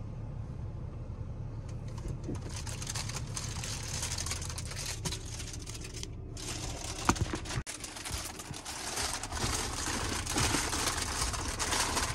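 Sprinter van's engine running, heard from inside the cab, with scattered clicks and rustling and one sharp click about seven seconds in.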